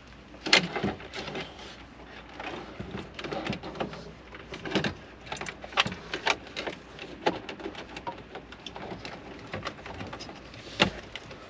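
Irregular clicks, knocks and rubbing of plastic as a Kenwood double-DIN head unit in its plastic dash kit is worked into a truck's dash opening, with the sharpest knocks about half a second in and near the end.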